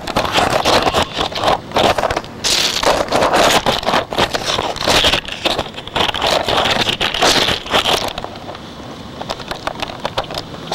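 Camera being handled and set down on a railroad track: loud scraping and crackling on its microphone that quietens about eight seconds in, when the camera settles.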